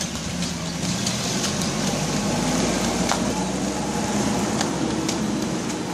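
Pickup truck engine running steadily as the truck moves off close by, louder in the middle. A few sharp taps sound over it.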